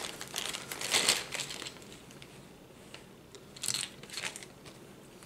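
Clear plastic parts bag crinkling as it is handled and opened. The rustling is loudest in the first second and a half, then two short crinkles come a little under four seconds in.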